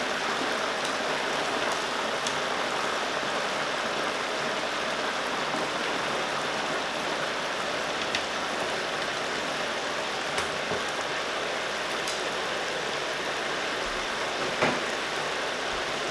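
Hot oil in an electric deep fryer bubbling and sizzling steadily around frying pork wontons. A few light clicks come from metal tongs against the wire fry basket.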